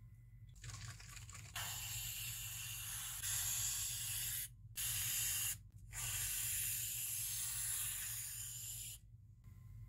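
Aerosol can of whipped cream spraying in three hissing bursts. The first and last each run about three seconds, with a short one between.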